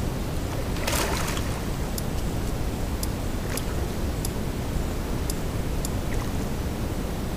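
A hooked fish splashing once at the surface about a second in, over a steady low rumble. Short sharp ticks come at irregular intervals through the rest of it.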